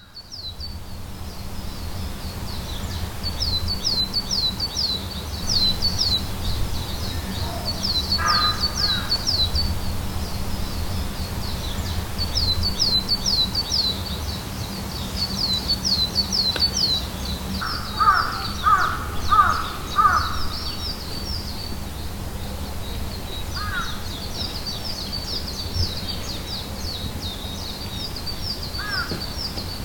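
Crows cawing: a single caw, then a run of four caws about two-thirds of the way in, then a couple more single caws, over rapid, steady high chirping from a smaller bird and a low rumble.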